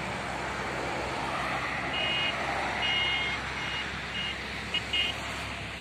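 Steady roadside traffic noise, with a high electronic beeping from a vehicle: several short, unevenly spaced beeps between about two and five seconds in.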